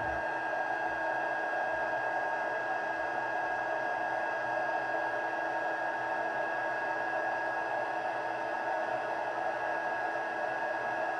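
Handheld embossing heat tool running steadily, blowing hot air with a thin steady whine over the rush of its fan, melting embossing powder on a stamped card.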